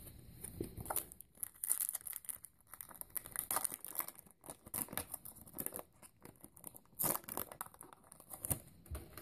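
Foil Pokémon TCG booster pack wrapper being torn open and crinkled: an irregular run of sharp crackles.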